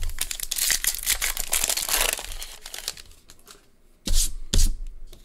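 Foil trading-card pack wrapper being torn open and crinkled for about three seconds, a crackle of many small clicks. About four seconds in come two loud thumps.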